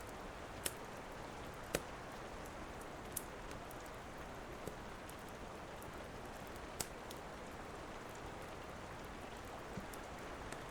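Steady rain with a few sharp, scattered pops from a crackling wood fire.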